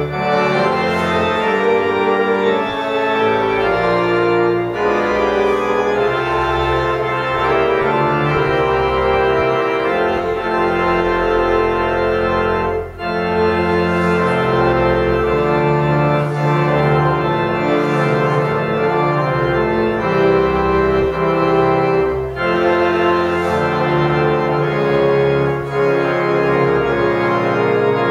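Church organ playing slow sustained chords that change every second or two, with a brief break between phrases about halfway through.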